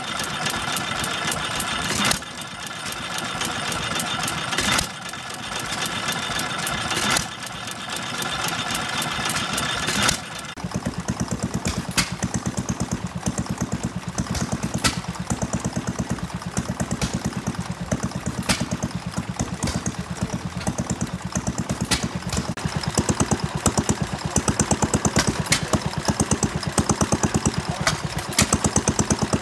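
Antique stationary gas engines running. For the first ten seconds there is a dense mechanical rattle with a hiss, dropping off sharply three times. After that comes a rapid, even chugging beat broken by a sharp click every second or so.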